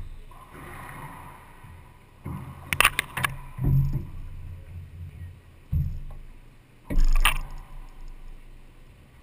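Knocks and dull thuds echoing around an enclosed racquetball court between points: a quick cluster of sharp knocks about three seconds in, a few low thuds, and the loudest knock about seven seconds in.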